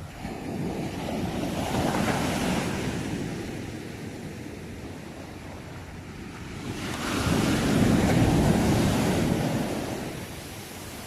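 Sea waves breaking and washing on the shore: two swells of surf about six seconds apart, each rising and falling away over a few seconds, the second a little louder.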